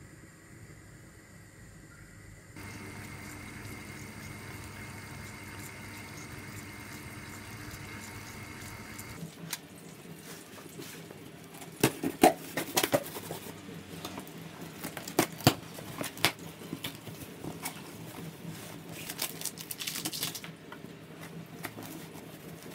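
A steady hiss with a faint held tone for several seconds, then a cardboard box being handled and opened: several sharp knocks, the loudest about halfway through, and crackling rustle near the end.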